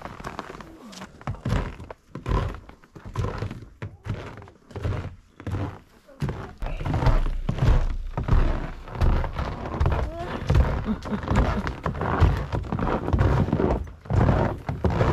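Hiking footsteps on packed snow, a steady thud roughly every two-thirds of a second, growing louder and busier about six seconds in.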